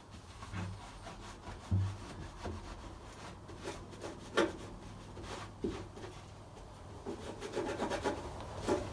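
Rag wiping and rubbing over a bare metal van floor, with a few short knocks and bumps, the sharpest about two and four and a half seconds in.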